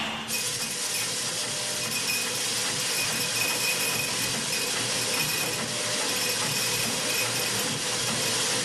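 A steady, even hiss with a faint high whine running through it, starting abruptly about a third of a second in.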